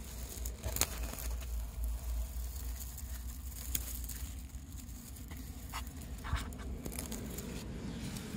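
Dry straw rustling and crackling in short scattered bursts as it brushes against a handheld phone, with handling clicks, over a low steady rumble of wind on the microphone.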